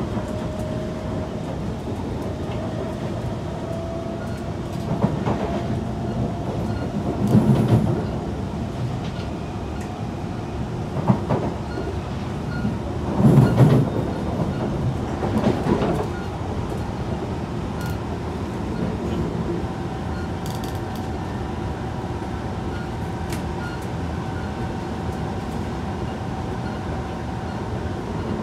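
Kawasaki C151 metro train running, heard from inside the passenger car: a steady rumble of wheels on rail with a faint motor whine that rises over the first few seconds and holds steady later. A run of louder clunks and rattles comes through the middle, the loudest about halfway.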